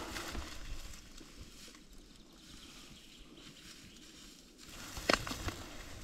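Footsteps crunching through dry brush and fallen branches on a forest floor, with a sharp snap about five seconds in.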